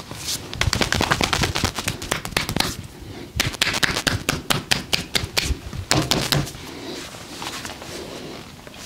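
Percussive massage: hands striking the body in rapid chopping or slapping strokes, two fast runs of many quick hits with a short break between, then a few lighter taps.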